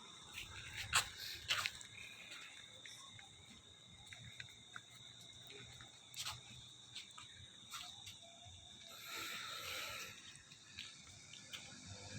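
Faint background with a steady high-pitched whine, scattered clicks and rustles, and a short burst of rustling about nine seconds in.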